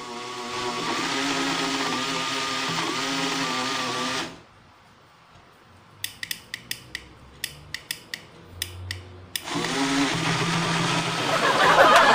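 Battery-powered portable personal blender running, its motor whirring with a wavering pitch as it blends papaya, then cutting out suddenly about four seconds in. After a short pause, about a dozen sharp clicks from its push-button being pressed again and again, and the motor starts up again near the end; the blender is low on battery.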